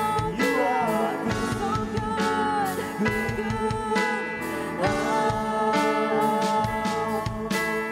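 Live worship band playing, with a woman singing lead over keyboard, bass guitar and electric guitar.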